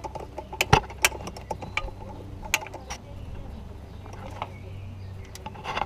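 Ratchet wrench clicking as it turns a socket on a long extension, working the bolt over the small fuel filter of a Ford Courier 2.7 turbo diesel: a string of sharp, irregular clicks. A steady low hum runs underneath.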